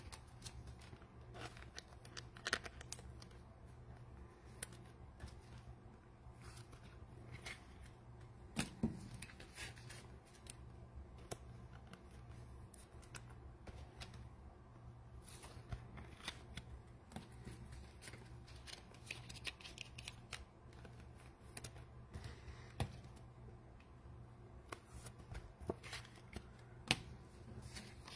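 Trading cards being handled: faint scattered clicks, taps and rustles of cards being sorted and stacked, over a steady low hum.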